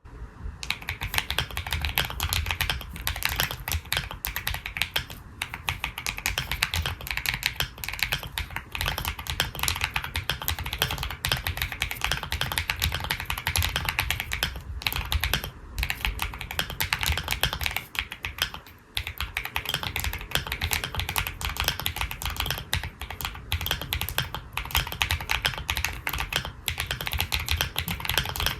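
Fast, continuous typing on a mechanical keyboard with 苦茶 (Kucha) purple switches: a dense stream of key clacks with a brief pause about two-thirds of the way through.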